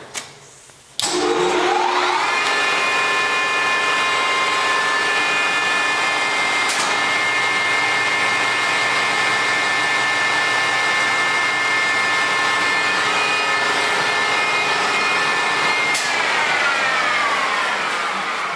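Promax 26" x 120" engine lathe's spindle drive starting about a second in, whining up to speed with several pitched tones from the motor and headstock gears, running steadily, then winding down with falling pitch near the end.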